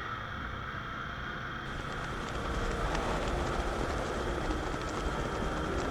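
Motorcycle running on the move, with heavy wind noise on the microphone. It grows louder about two seconds in as the throttle opens.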